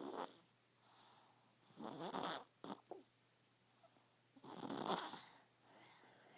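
A baby snoring in its sleep, one snore with each breath. There is a brief snore at the start, then long ones about two and three seconds apart, with two short catches just after the second.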